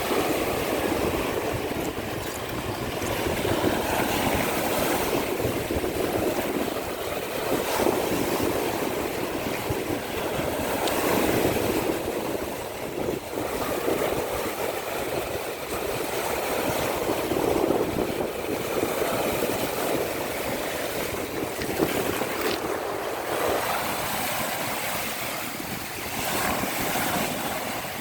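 Baltic Sea surf washing onto a beach, swelling and falling back every few seconds, with wind rumbling on the microphone.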